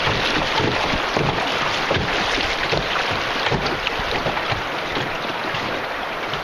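River water rushing and splashing around a canoe, a steady splashy noise with many small crackles throughout.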